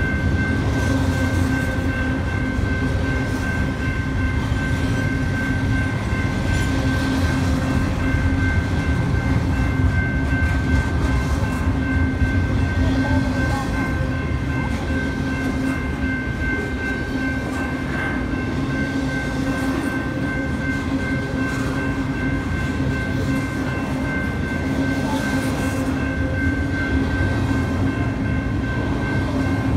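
Double-stack intermodal container train rolling past at a grade crossing: a steady, loud rumble of wheels on rail from the passing well cars, with steady high-pitched tones lasting throughout.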